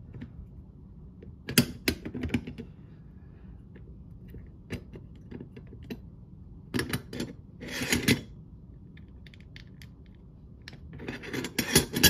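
Metal clicks and clatter from an Emtek brass mortise lock body and its small parts being handled and fitted during reassembly. The clicks are irregular, with a denser run about seven to eight seconds in and more near the end.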